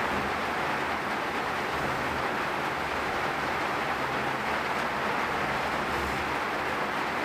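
Steady heavy rain falling, an even, unbroken hiss.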